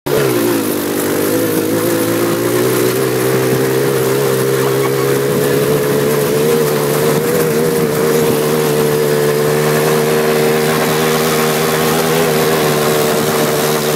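Go-kart engine running at a steady cruising speed, its pitch dropping in the first second and then holding level.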